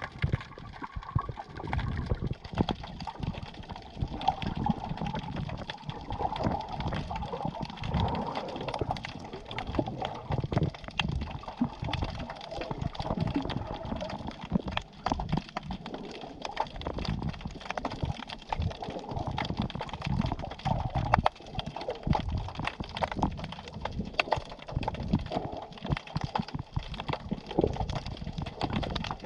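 Sea water heard through an underwater camera while snorkelling: sloshing and gurgling, with frequent irregular clicks and low knocks throughout.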